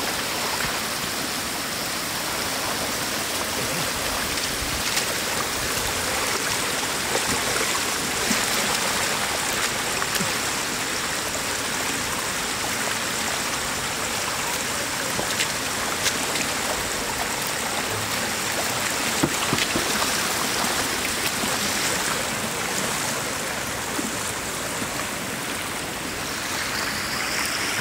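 Floodwater rushing steadily as it pours over the broken edge of a road in a small cascade.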